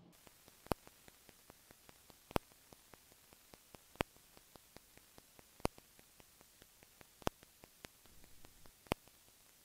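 Steady hiss with a fast run of faint ticks, about four or five a second, and a sharp louder click about every second and a half.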